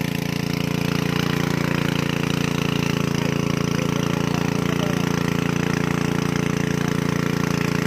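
An engine running steadily at a constant speed, its pitch unchanging.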